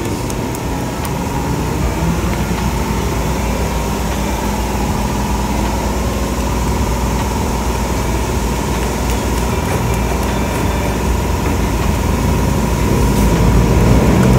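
A steady low mechanical rumble, engine-like, with a constant thin hum running through it.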